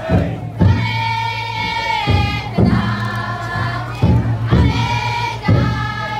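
Large taiko drum inside a futon daiko festival float beaten in a slow, uneven beat, with a group chanting long, drawn-out notes in chorus over it.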